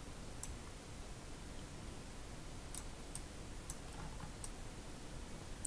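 Several faint, scattered computer mouse clicks over a quiet room hiss, with one sharper, louder click near the end.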